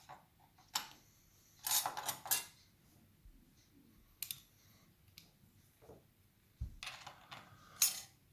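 Small metal parts of a mortice lever lock, its levers and spacers, clicking and clinking as they are lifted out and set down, in a few short clusters with a dull knock just before the last one.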